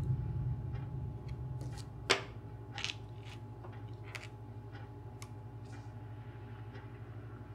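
Pencil strokes scratching across paper as lines are drawn, a short stroke every second or so, with a sharp click about two seconds in, over a low steady hum.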